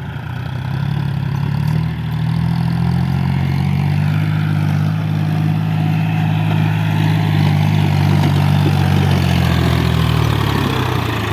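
Diesel engine of a JCB 3DX backhoe loader revving up about a second in, running steadily at high revs while the machine loads mud, then dropping back toward idle near the end.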